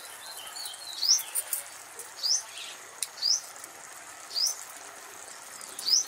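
A bird calling over and over, a short rising chirp about once a second.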